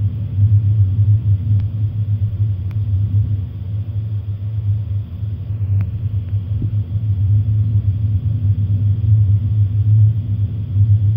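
Steady deep rumble that holds throughout, with a couple of faint ticks.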